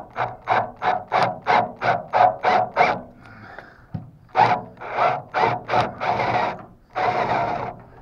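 Cordless drill turning a spiral screw extractor against a stripped, rusted screw, trying to bite into it. It goes in a rapid run of short bursts, about three a second, then a brief pause, a few more bursts and two longer runs near the end.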